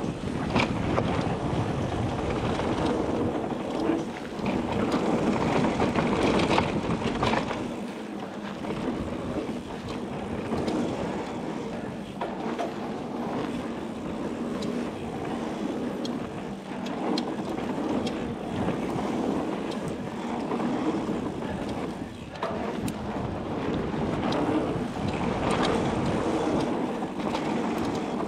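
Mountain bike ridden down a dry, loose dirt trail: the tyres rumble over the dirt, with knocks and rattles from the bike over bumps and wind rushing over the camera microphone. The low rumble is heavier for the first several seconds, then eases.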